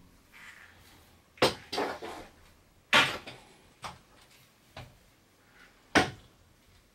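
Sharp knocks and clacks as a handheld shower head and its metal hose are handled and turned, three loud ones about a second and a half apart with lighter clicks between.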